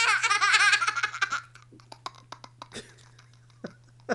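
Young child laughing hard in high-pitched giggles for about the first second and a half, then trailing off into short faint clicks and breaths.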